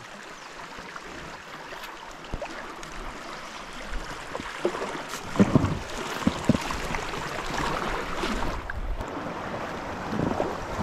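River water washing around a canoe as it drifts downstream, with a few knocks about halfway through. Wind buffets the microphone more and more in the second half.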